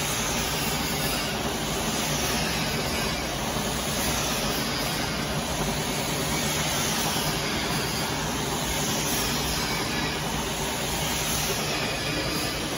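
Conveyor tunnel furnace for dye-sublimation mugs running, its wire-mesh conveyor belt moving: a steady, even hiss-like machine noise with a faint low hum underneath.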